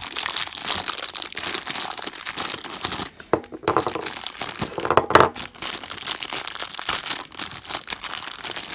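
Clear plastic packaging bag crinkling and rustling as it is handled and pulled open. There are louder crackles about three and five seconds in.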